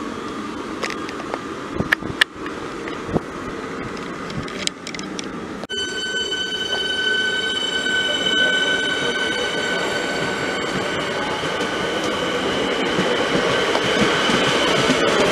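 Melbourne Metro electric suburban train moving off from the platform. A rumble with a few sharp clicks comes first; about six seconds in, a steady high electric whine starts suddenly, and the rumble grows louder as the train gathers speed.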